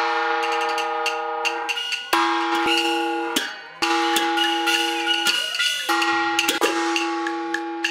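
Sichuan opera music: a long held note on one steady pitch, broken off and taken up again several times, under many sharp percussion strikes.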